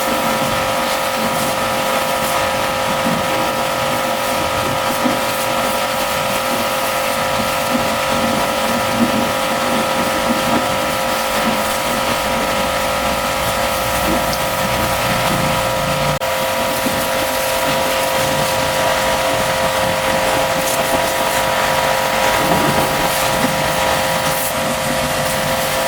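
High-pressure washer running steadily: a constant motor and pump whine over the hiss of the water jet.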